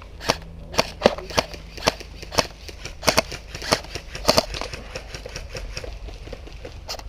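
Airsoft guns firing in quick single shots, a sharp crack about two or three times a second. The shots come densest in the first four and a half seconds, then thin out.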